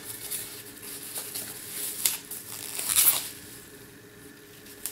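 Rustling and crinkling of a thin protective packaging sleeve as a tablet is slid out of it, with the loudest rustles about two and three seconds in, then dying away.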